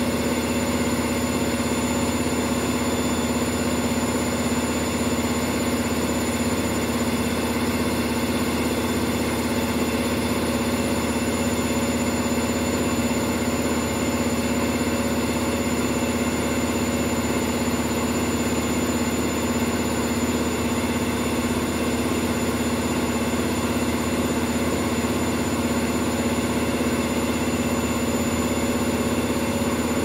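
Indesit front-loading washing machine on a fast spin: the motor and drum give a steady, even hum with a whine running through it.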